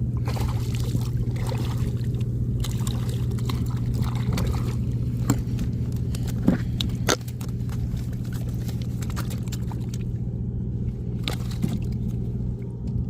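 Water sloshing and trickling, with scattered knocks and clicks over a steady low hum.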